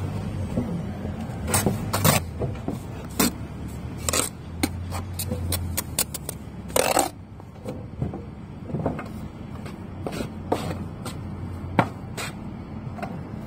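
Steel brick trowel knocking and scraping against bricks and mortar: a run of sharp taps and scrapes, with a longer scrape about seven seconds in, over a low steady hum.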